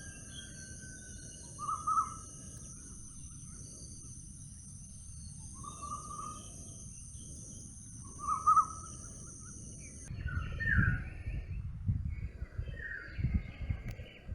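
Forest birds calling, with short calls repeated every few seconds. About ten seconds in, a steady high-pitched hum cuts off, and low rumbling noise and more bird calls come in.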